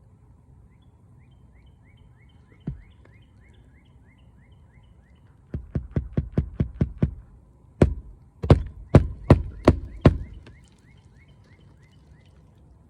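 Hammer driving roofing nails through a replacement asphalt shingle: a single knock, then a quick run of about eight lighter taps, then about six harder blows. A bird chirps repeatedly in the background.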